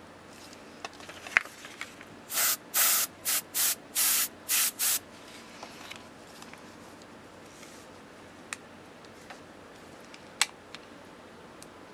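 Copic airbrush, fed by an air compressor, spraying in about seven short hissing bursts in quick succession a couple of seconds in. The air blows across a marker tip to lay colour onto a tester sheet.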